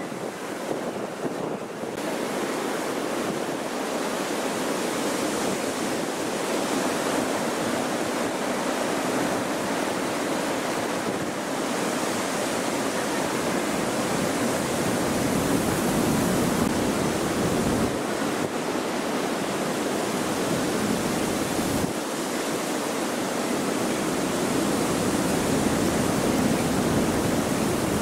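Strong gusty wind blowing across the microphone, a steady rush of noise.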